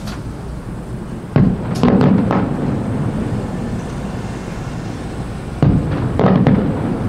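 Aerial firework shells bursting. A loud bang comes about a second and a half in, followed by several more within the next second, then a second volley of bangs a little before the end, with a low rumble between them.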